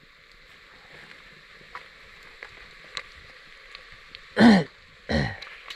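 Two short, loud vocal sounds from a man, each falling in pitch, about four and five seconds in. Under them runs a steady faint hiss with a few small clicks.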